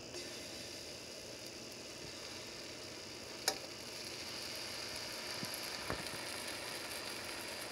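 Faint sizzling of a hot frying pan, growing a little louder about halfway through as banana-Oreo pancake batter lands in it. There is one sharp click about three and a half seconds in.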